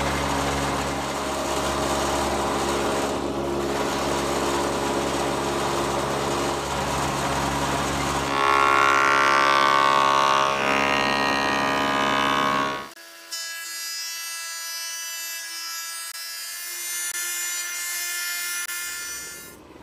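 Thickness planer running with a laminated oak panel fed through it, the cutterhead planing the board; the cutting gets louder and brighter for several seconds past the middle. About two-thirds through, the sound changes abruptly to a thinner, higher steady machine whine that runs until just before the end.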